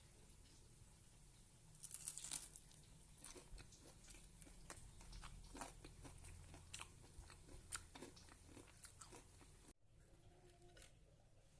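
Faint crisp crunching as a deep-fried vegetable fritter (bakwan) is bitten and chewed: a run of short crackly crunches that starts about two seconds in and cuts off abruptly near the end.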